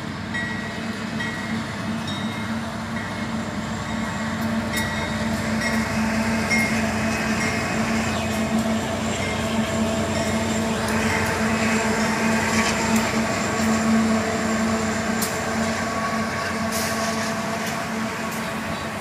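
Union Pacific diesel freight train passing: a steady locomotive engine drone with rail rumble that grows louder to a peak a little past halfway, then eases, with occasional sharp clicks.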